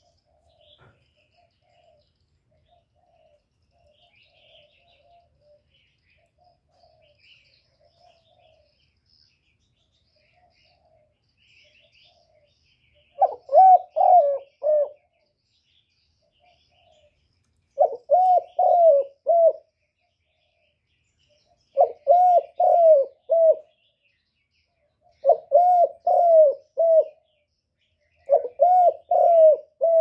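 Spotted dove cooing: soft, faint coos for the first dozen seconds, then from about halfway through five loud phrases of about four coo notes each, repeated roughly every four seconds. This is the bird's territorial song, used to lure wild doves.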